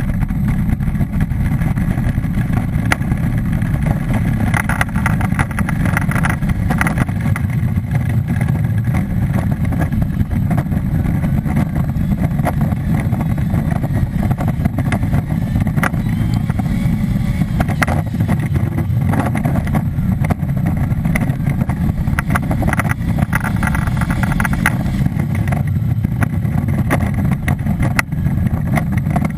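Onboard sound of an ice-racing car's engine running hard with tyre noise on the ice, a continuous low, loud rumble that swells higher at a few points as it drives the course.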